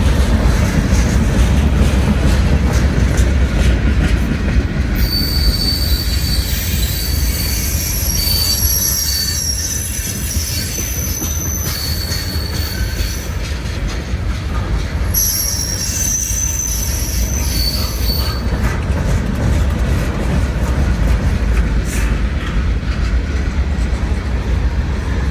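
Freight train cars rolling past with a steady heavy rumble. Several high-pitched wheel squeals sound together from about five seconds in, break off briefly, resume, and stop a few seconds before the end.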